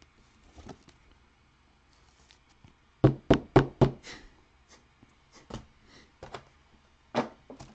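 A quick run of four sharp knocks about three seconds in, then scattered lighter clicks and one more knock near the end: trading cards and a card pack being handled on a tabletop.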